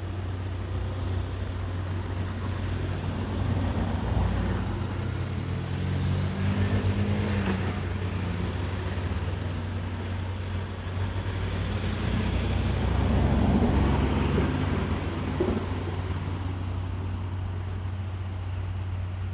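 Railway train moving slowly during shunting: a steady low engine hum, with rumbling that swells and fades a few times as it goes.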